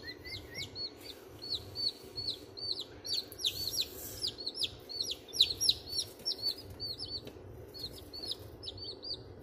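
Baby chicks peeping over and over: short, high, downward-sliding peeps, several a second, some louder than others. Beneath them is a low steady hum.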